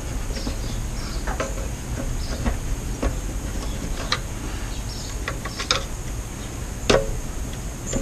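Scattered metal clicks and knocks as a fire pump's housing is pried and wiggled against its Honda GX200 engine, with one sharper, ringing clank about seven seconds in. The housing is still held fast and will not separate.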